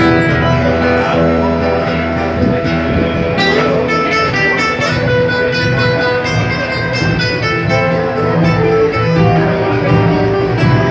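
Live band playing an instrumental passage of an Andean folk song, acoustic guitar strumming under a melody of held notes, with drums.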